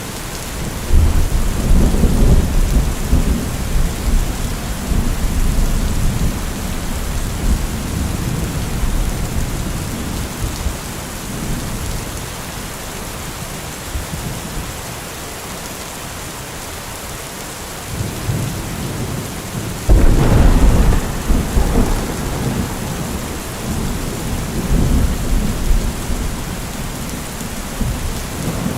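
Heavy rain falling steadily, with a deep low rumble about a second in and another, sudden and louder, about twenty seconds in, each dying away over several seconds.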